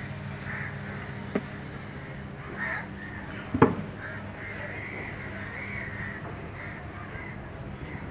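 Crows cawing repeatedly over a steady low mechanical hum. Two sharp knocks cut through, the louder one about three and a half seconds in.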